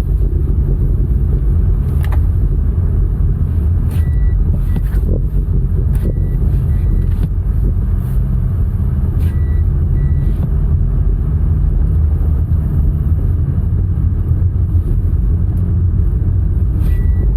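Toyota Corolla driving, a steady low engine and road rumble with no clear revving, broken a few times by brief high chirps.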